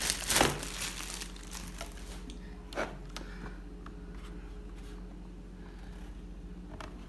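Keyboard packaging rustling and crinkling as the keyboard is taken out, loudest in the first second, followed by a few light clicks and knocks from handling.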